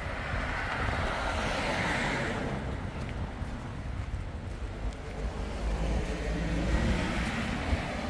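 Wind buffeting the microphone with a ragged low rumble, over the noise of street traffic; a hiss like passing car tyres swells about two seconds in and again near the end.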